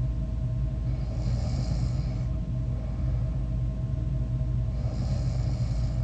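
A sleeping person snoring: two breaths about four seconds apart, over a steady low hum.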